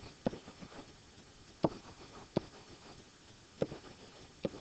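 Pen tip tapping on a digital writing surface as letters are written: about five sharp taps, spaced roughly a second apart.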